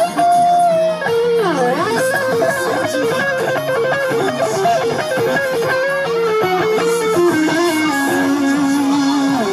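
Loud instrumental music led by an electric guitar playing a melody line, with a quick swoop down and back up in pitch about a second and a half in.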